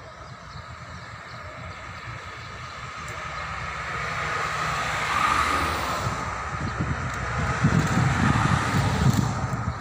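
A vehicle passing on the street: a rushing noise that swells to a peak about five seconds in and eases, then a louder low rumble near the end that cuts off suddenly.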